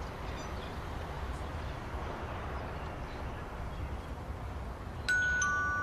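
Two-tone doorbell chime about five seconds in, a higher 'ding' and then a lower 'dong', both ringing on and fading, over a steady low street background.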